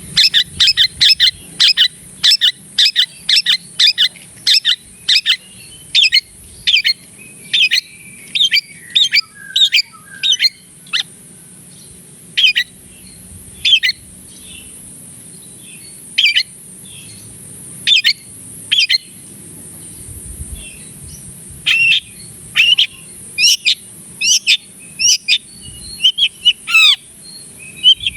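Long-tailed shrike (cendet) singing in a loud, vigorous run of short, sharp high notes, about two a second for the first ten seconds or so, then more spaced out, with a few falling whistled notes near the end.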